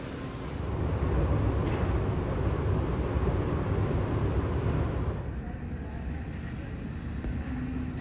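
Airport terminal ambience: a steady low rumble with a murmur of voices. About five seconds in it gives way to a quieter, duller hum.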